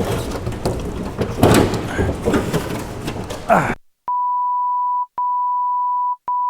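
Workshop clatter and knocks of truck parts being handled, cut off suddenly about four seconds in. Three steady, mid-pitched beep tones of about a second each follow, separated by dead silence, an edited-in tone that is typical of a censor bleep.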